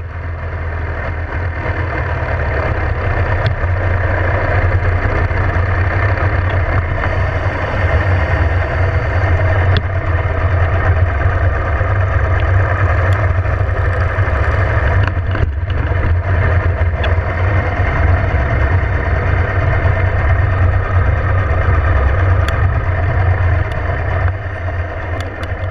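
Cruiser motorcycle engine running as the bike rides at low speed, a steady low rumble with a brief dip about fifteen seconds in.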